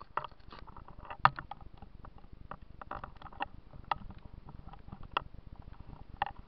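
Camera handling noise: irregular clicks and knocks as the camera is moved and adjusted, the sharpest about a second in.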